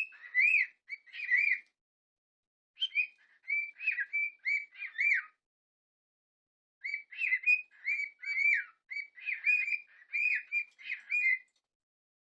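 Cockatiel whistling in three bouts of quick, short notes that rise and fall in pitch, with silent pauses between bouts.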